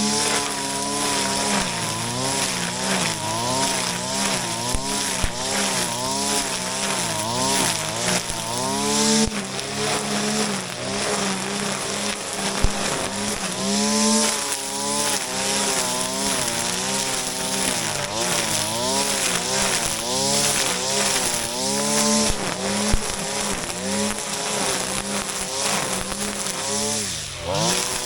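Shindaiwa RK3026-PT 25.4 cc two-stroke brush cutter running at high speed, its engine pitch dipping and recovering over and over as the cutting head takes the load of the grass. A few sharp ticks break in.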